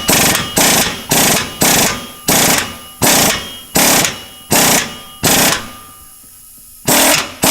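Impact wrench run in reverse in short trigger bursts, about two a second, hammering loose a bolt on a Hyundai Veloster Turbo's downpipe. It pauses for a second or so near the end, then fires again.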